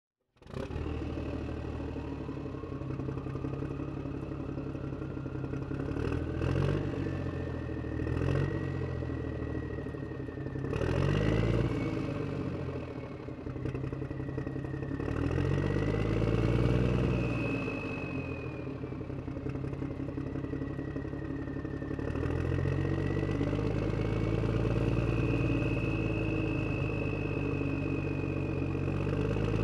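A motor engine running, its sound swelling and easing several times, with a thin whine gliding up and down in pitch. A few sharp clatters come in the first half.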